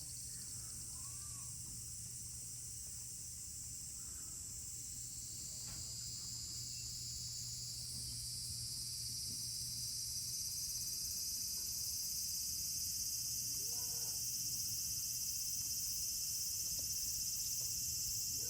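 High-pitched chorus of insects droning steadily and slowly growing louder, over a steady low hum.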